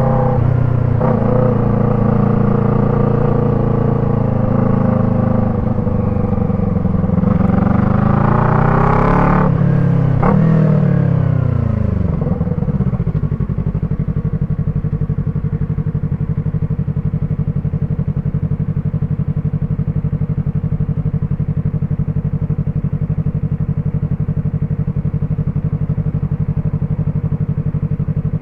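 Yamaha MT-03's 321 cc parallel-twin engine breathing through an Arashi aftermarket exhaust with dB killer. It holds a steady note, is revved up about seven seconds in and blipped again, then drops back to a steady idle for the second half.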